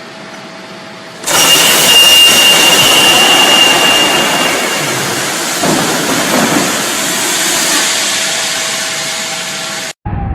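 An aircraft emergency evacuation slide inflating: after a quieter steady hum, a loud rush of gas starts suddenly just over a second in, with a high whistle for the first few seconds, then goes on rushing and slowly eases until it cuts off near the end.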